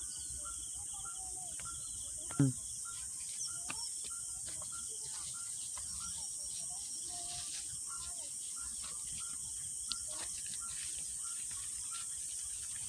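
Rural riverbank ambience: a steady high drone of crickets or other insects with short bird chirps repeating every fraction of a second. A single brief, loud falling sound stands out about two and a half seconds in.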